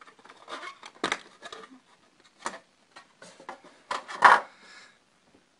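Handling noise of a phone being pulled out of its cardboard box holder: irregular rustling and scraping of the packaging with a few sharp clicks. The loudest are a click about a second in and a short scrape a little after four seconds.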